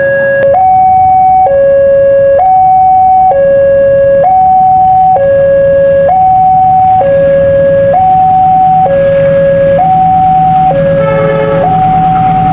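Indonesian railway level-crossing warning alarm sounding its two-tone signal, a lower and a higher tone alternating steadily about every half second or so. In the second half the low rumble of an approaching train joins in.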